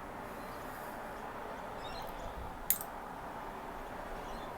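A single sharp click about two and a half seconds in, with a few faint ticks just before it, over a steady low hiss: the small saw blade of a Kobalt multi-tool being folded out of its handle.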